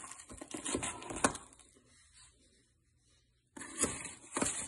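A tablespoon clinking and scraping as coarse sea salt is scooped from a plastic tub and tipped into a stainless steel pot of water: a run of small clicks and scrapes, a pause, then a second short run about three and a half seconds in.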